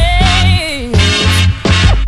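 Music with a bass line and a steady beat; its melody slides downward in pitch about halfway through.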